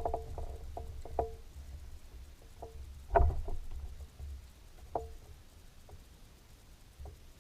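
Irregular hollow knocks on a boat's hull, several close together at first, the strongest about three seconds in and another near five seconds, over a low rumble of wind.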